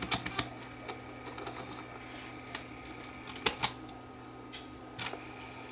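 Small plastic clicks and clacks from the portable cassette recorder being handled and its keys and switches being worked: a few quick clicks at the start, then single clicks, including a close pair, spaced over the next few seconds.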